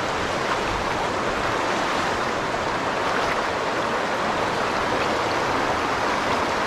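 Fast-flowing river water rushing steadily over rocks, with a strong current.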